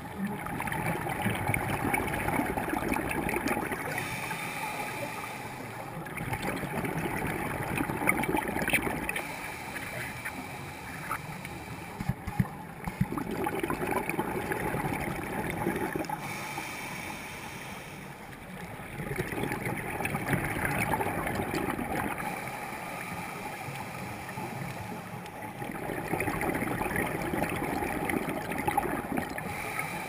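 A scuba diver breathing through a regulator underwater: a gurgling rush of exhaled bubbles swells and fades about every six to seven seconds, five times, with quieter stretches between.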